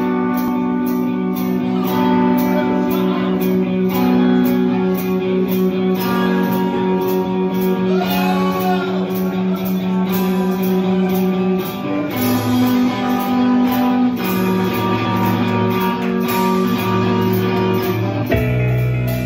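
Live band with electric guitars and bass guitar playing an instrumental passage of held chords over a steady ticking beat, changing chord near the end.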